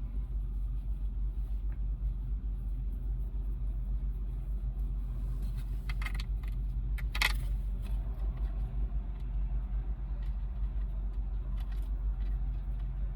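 An engine idling steadily with a low rumble, with a few light metallic clicks and rattles about six and seven seconds in and again near the end.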